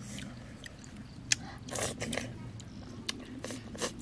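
Eating cooked clams by hand: shells clicking and scraping against coconut-shell bowls, with wet chewing and lip-smacking. A sharp click just over a second in is the loudest sound.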